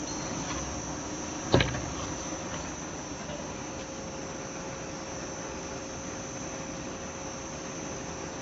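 Edge polishing and sanding machine running steadily, with a constant high-pitched whine over a noisy hum. A single sharp knock about a second and a half in.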